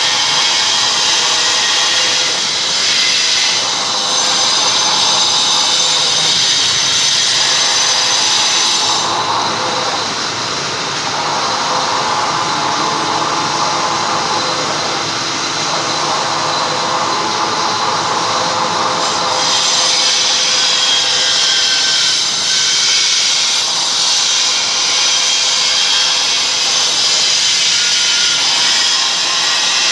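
Vertical milling machine cutting a steel block clamped in a machine vise: a loud, steady machining noise. Its tone changes from about nine seconds in to about nineteen seconds, losing its highest hiss.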